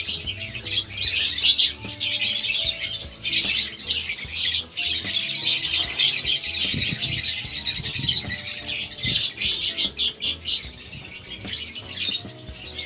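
Young hand-fed birds, about three weeks old, giving a constant stream of rapid, high squawking begging calls while being hand-fed. Music plays faintly underneath.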